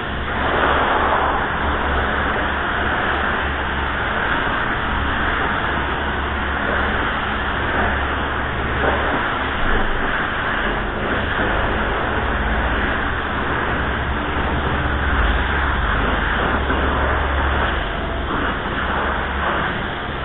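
Gravity-feed paint spray gun spraying steadily, its compressed-air hiss atomising clear coat onto a plastic bumper cover, with a steady low rumble underneath.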